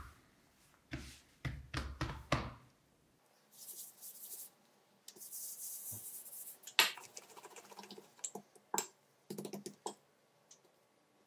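Hands pressing and stretching a thin sheet of pastry dough on a countertop: several soft thumps in the first couple of seconds, then light brushing, then scattered taps and clicks as a wooden rolling pin is picked up and laid on the dough near the end.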